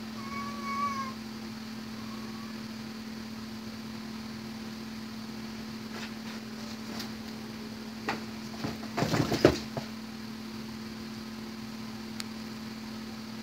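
A domestic cat meows once, a short call, near the start. Later come scattered scratches and knocks and a burst of cardboard rustling as the cat paws into a cardboard box. A steady low hum runs underneath.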